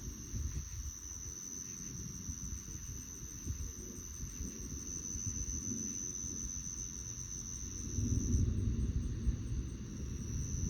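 Night insects chirping in a steady, high-pitched chorus over a low rumbling noise that grows louder about eight seconds in.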